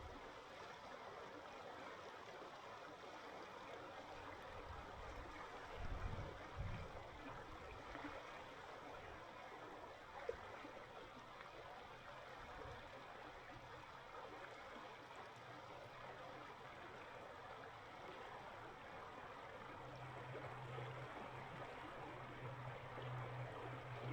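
Winter mountain river running: a soft, steady, even rush of water. A couple of dull low thumps come about a quarter of the way in, and a faint low hum comes in near the end.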